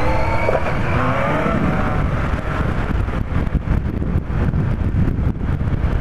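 Yamaha FZR1000 inline-four engine accelerating as the motorcycle pulls away, its pitch rising in the first couple of seconds. Wind buffeting on the microphone grows over the last few seconds as speed builds.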